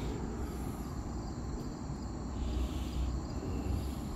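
Outdoor ambience: faint, steady insect chirring over a low rumble, with a brief soft hiss about two and a half seconds in.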